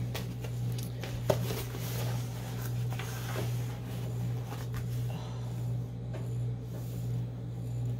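Plastic sleeve of a rolled diamond-painting canvas rustling and sliding on a wooden tabletop as it is laid down and smoothed flat by hand, with a sharp tap about a second in. A steady low hum runs underneath.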